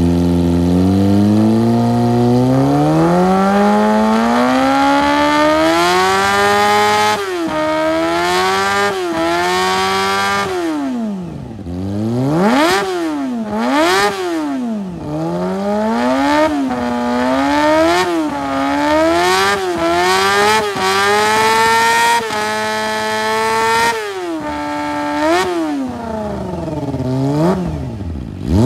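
Kawasaki ZX25R's 250 cc inline-four revved in place through a Prospeed Shark Predator carbon exhaust with the dB killer removed, bassy and loud. The revs climb slowly for about the first seven seconds, then come as a run of quick blips up and back down, one every second or two.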